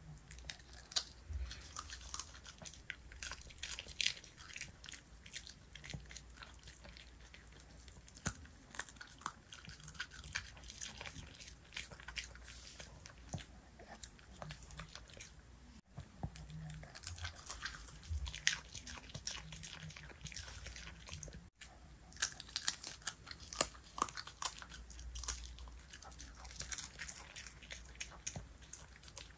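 A Bichon Frise chewing raw napa cabbage, many crisp crunches in quick clusters as he bites through the leaf.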